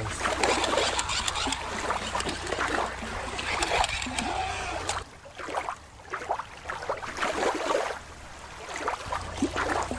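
Shallow water lapping against rock, with water squirted from a squeezed rubber squirt toy spattering onto the surface. About halfway through this gives way for a few seconds to a quieter, steadier watery hiss, then the lapping and spattering return near the end.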